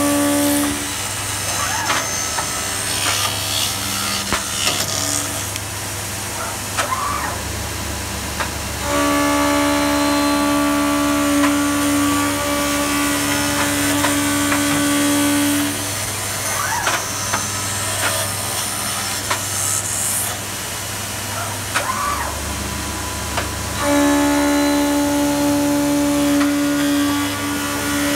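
Intorex CRM rotary CNC wood lathe turning wooden workpieces, giving a steady cutting noise. A loud steady whine comes in three times, for several seconds each: briefly at the start, then from about nine seconds in and again about twenty-four seconds in. Between these the machine runs quieter, with scattered ticks.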